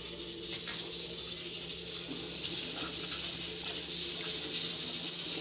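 Kitchen tap running into a stainless steel sink, the water stream splashing over vegetables rinsed by hand. A steady hiss of running water throughout.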